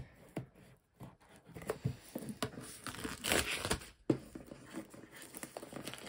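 Clear plastic shrink wrap being torn and peeled off a board game box, crinkling in scattered short rustles, loudest about three seconds in.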